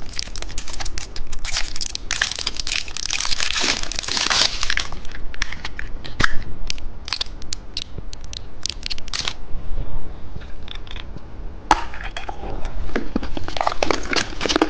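Close-up crinkling, crackling and crunching from a car-key-shaped candy and its plastic wrapping being opened and handled. The sound comes in dense runs of crackles, thins out, pauses briefly, then picks up again near the end.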